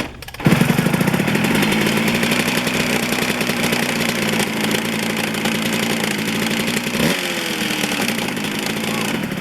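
Suzuki RM125 two-stroke single-cylinder engine running at a steady pitch. About seven seconds in the pitch jumps up and then falls away. The engine starts about half a second in and cuts off abruptly at the end.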